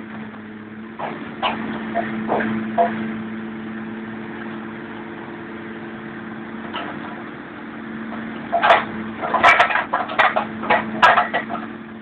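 Steady engine hum from the demolition machine, with a few sharp cracks early and then a dense run of loud cracks and crunches near the end as the wrecked Volkswagen Kombi van's body is crushed.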